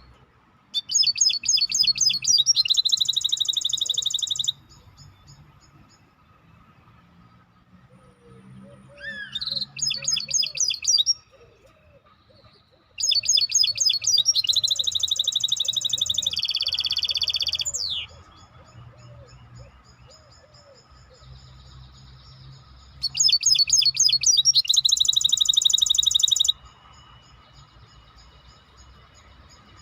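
A songbird singing: four bursts of fast, high trills, the longest about five seconds, with short pauses between them.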